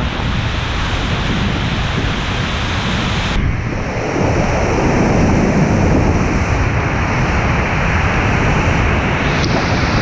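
A 25-metre, high-volume waterfall thundering at close range, heard from inside its spray, with spray and wind buffeting the microphone. The sound turns duller about three and a half seconds in and grows slightly louder.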